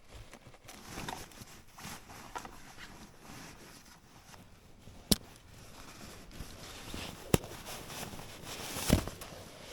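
Rustling and handling noises as a sleeping bag is pulled out and laid out, with two sharp clicks a couple of seconds apart and a heavier thump near the end.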